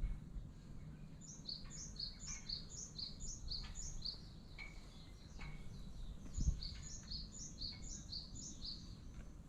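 A small songbird singing a repeated two-note phrase, a high note dropping to a lower one about twice a second, in two runs of several phrases, over a steady low rumble. A dull thump about six and a half seconds in.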